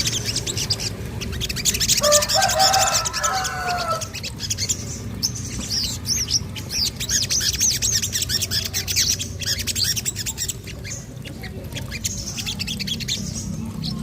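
Crimson sunbird (sogon) singing: rapid, high-pitched chirps and short trills in quick runs. About two seconds in comes a lower call of several stacked tones lasting about two seconds. A low steady hum runs underneath.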